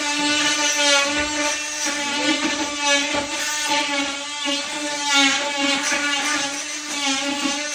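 A handheld power tool's motor running steadily with a constant high whine, its pitch wavering slightly as it works.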